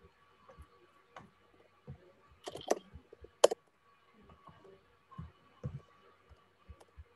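Computer keyboard being typed on in irregular clicks and soft knocks, with a few louder key strikes about two and a half and three and a half seconds in.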